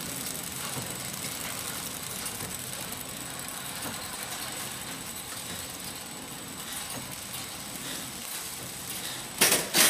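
Coretamp KT-350D cookie pillow-packaging machine running steadily, with a thin high whine over its mechanical noise. Two sharp, loud noises near the end.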